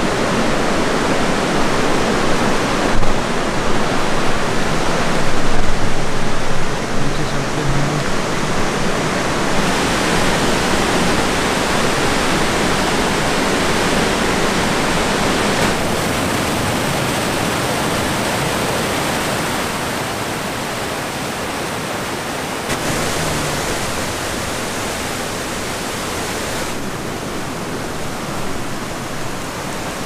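Steady rush of white water pouring and tumbling over rock at a waterfall. The rushing changes tone abruptly several times and is loudest in the first few seconds.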